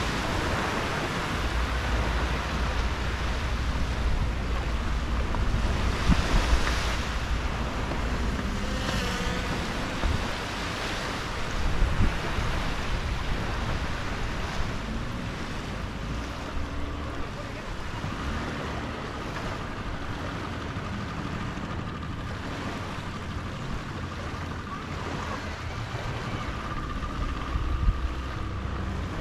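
Small waves washing gently onto a sandy beach, rising and falling softly over a low steady rumble.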